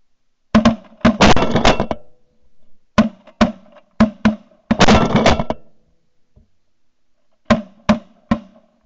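Shotgun volleys at waterfowl: scattered shots and two dense rattles of several guns firing at once, then three more shots about half a second apart near the end.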